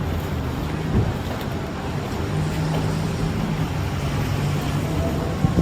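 Street traffic: a vehicle engine running with a steady low hum over a constant low rumble. There is a short thump about a second in and another near the end.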